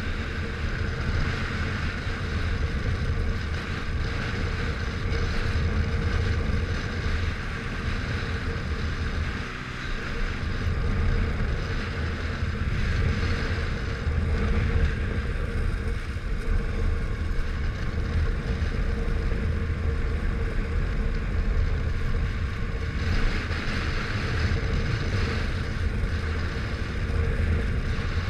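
Motorcycle engine running steadily while riding, with wind rushing over the bike-mounted microphone. The engine's rumble dips briefly about a third of the way in.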